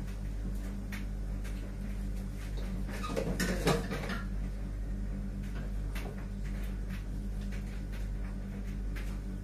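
Spatula scraping and knocking in a large pan as rice and vegetables are stirred, with a louder clatter about three and a half seconds in, over a steady low hum.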